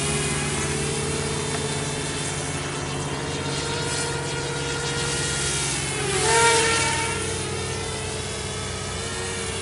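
Walkera F210 racing quadcopter's brushless motors and propellers buzzing in flight, the pitch rising and falling with throttle. A louder surge with rising pitch comes about six seconds in.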